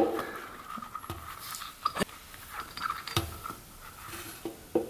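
Quiet handling noise from a plastic bottle of two-stroke oil being squeezed, its nozzle in the spark plug hole of the motorcycle cylinder head, with a few light clicks and taps. The oil is going in to lubricate the cylinder and piston before the engine is kicked over.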